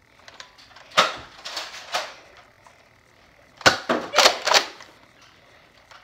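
Plastic clacks of toy Nerf blasters being primed and fired: a few sharp snaps about a second in, then a quick run of about five in the middle.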